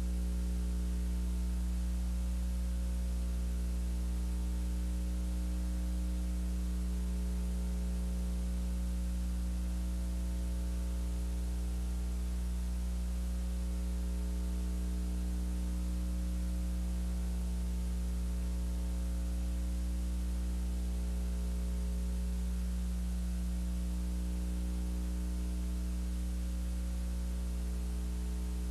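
Steady electrical mains hum with its overtones over a layer of hiss, and nothing else: the empty soundtrack of a silent film.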